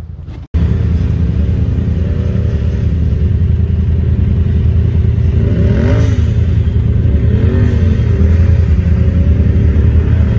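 Side-by-side UTV engine running steadily under load, revving up and back down at about six seconds and again just before eight seconds as it crawls up a rocky ledge. There is a brief dropout in the sound about half a second in.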